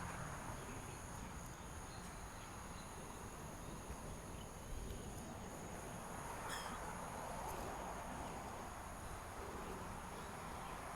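Steady high-pitched insect drone over a low background rumble.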